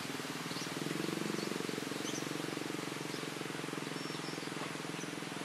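Motorcycle engine idling steadily, a fast even low pulsing, with a few faint bird chirps over it.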